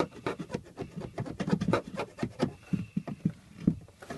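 Metal file scraping the cut end of a water supply pipe in quick, irregular strokes, deburring it so a SharkBite push-fit fitting will seal.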